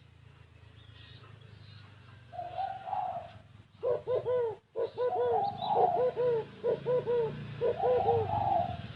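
Spotted dove cooing: a drawn-out coo about two seconds in, then a quick run of short, arched coos, about two a second, ending near the end in another drawn-out note. A steady low hum runs underneath.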